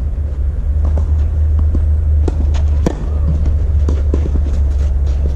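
Tennis ball knocks on a clay court, racket strokes and bounces, a scattering of short sharp hits with the loudest about three seconds in, over a steady low rumble.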